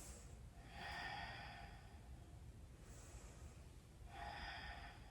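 Faint, slow, deep breathing by a person holding a yoga twist: two longer breaths about a second in and about four seconds in, with fainter breaths between them.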